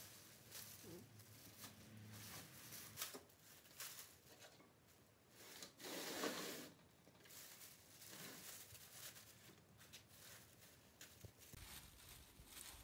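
Faint rustling and crinkling of a thin white plastic bag being pulled and spread over a cylinder head, with scattered light handling clicks and one louder swish about six seconds in.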